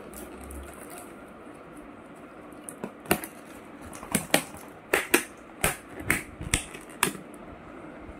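Clear plastic snap-on lid of a takeaway compartment tray crackling and clicking as it is pried off, a run of about ten sharp clicks over some four seconds.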